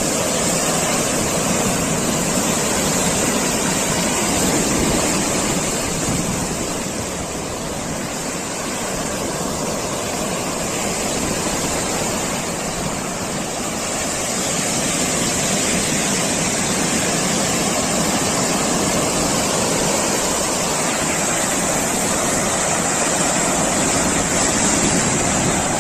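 Steady, loud rush of a storm: driving water and wind with no let-up.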